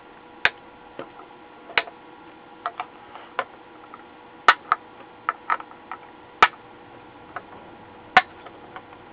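Diagonal cutters snipping off the excess leads of freshly soldered capacitors on a circuit board: about a dozen sharp clicks, spaced irregularly.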